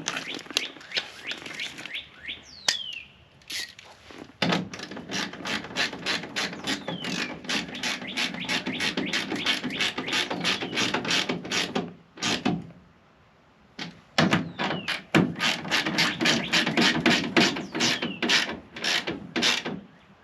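A power driver running in the two screws that hold a truck mudflap to the rear fender. Each screw takes several seconds of steady motor hum with fast, regular clicking, and there is a short pause between the two runs.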